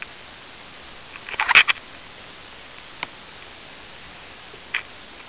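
Metal clicks and snaps from a Gerber Suspension multi-tool as its small folding implements are handled and swung open: a quick cluster of clicks about a second and a half in, then single clicks near three seconds and near five seconds.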